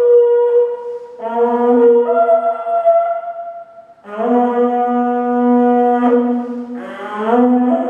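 Music of long, held wind-instrument notes with a horn-like tone: a new note starts about a second in, another about four seconds in, and near the end the pitch slides up into a final held note.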